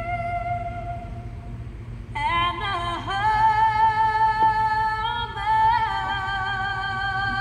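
A solo voice singing long held notes that slide between pitches, with a short break about two seconds in, over a steady low rumble.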